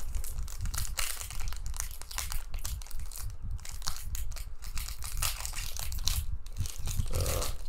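Foil wrapper of a Panini Donruss Optic trading card pack crinkling and crackling as it is torn open and handled, with short pauses now and then.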